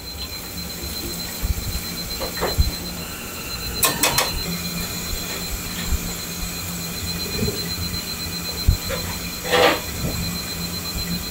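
Commercial kitchen noise: a steady machine hum with a thin high whine, broken by sharp metal clinks about four seconds in and a short squeak near the end, as tongs handle fried food on a wire rack and plate.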